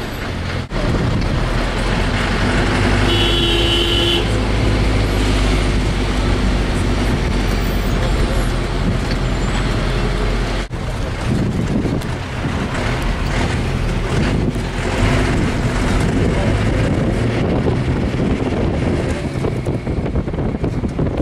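A motor vehicle's engine running steadily under road noise, heard from a vehicle on the move.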